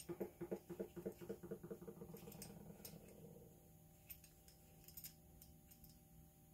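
Metal grease gun barrel being twisted onto its head by hand, giving a quick, even run of light ticks that fades out after about three and a half seconds, then a few faint clicks.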